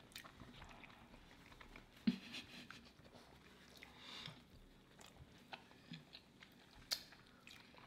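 Faint chewing and mouth sounds of people eating sandwiches, with a few short sharp clicks, the clearest about two seconds in and near seven seconds.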